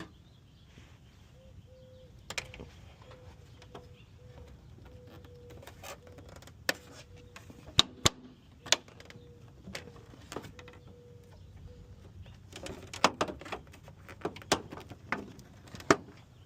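Irregular sharp clicks and knocks of hand work on a car's front end, tools and parts being handled, with a dense cluster of them in the last few seconds. A faint steady hum runs underneath for much of it.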